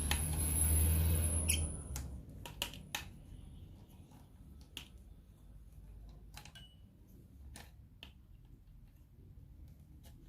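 Hands working the plastic parts of a ring light and its phone holder: about two seconds of louder rustling handling with a low hum, then scattered small clicks and knocks as parts are bent and fitted together.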